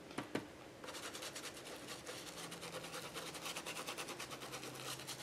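Soft stencil brush scrubbing paint through a plastic stencil onto thick journal paper: faint, quick brushing strokes, many a second, starting about a second in.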